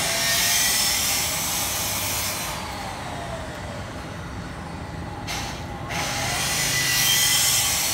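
Street traffic: two vehicles pass, each a swell of hiss with a faint sliding engine whine, over a steady low rumble.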